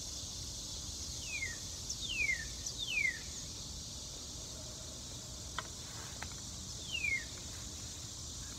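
Steady outdoor insect chorus with a northern cardinal singing over it: four clear down-slurred whistles, one about a second in, two close together around two to three seconds, and one near seven seconds. Two faint clicks come in the middle.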